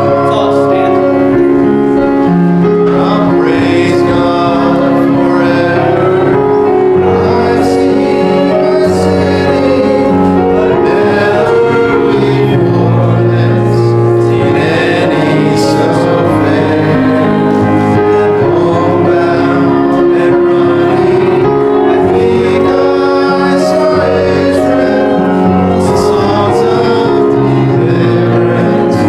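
Church congregation singing a hymn together with instrumental accompaniment, held notes over a moving bass line.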